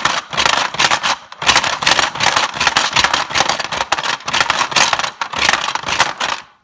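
Hungry Hungry Hippos board game in play: the plastic hippos' levers and jaws clacking rapidly while marbles rattle and roll across the plastic board, a continuous clatter.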